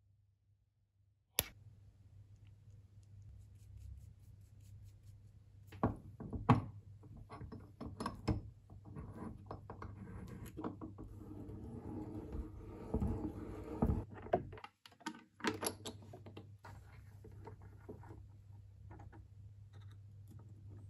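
Restored pipe vice being handled on a bench: a sharp metal click, then scattered knocks, and a few seconds of rattling as its threaded spindle is turned through the frame. Small clicks follow, then light scraping as a screwdriver works a screw on the jaws.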